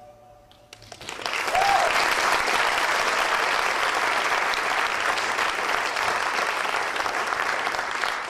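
The last notes of the song die away, and about a second in an audience breaks into steady applause, with one short whoop just after it starts.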